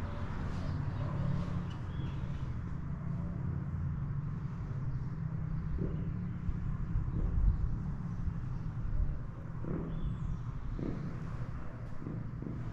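Outdoor ambience dominated by a steady low hum of a motor vehicle engine, with a few soft thuds in the second half and a couple of faint high chirps.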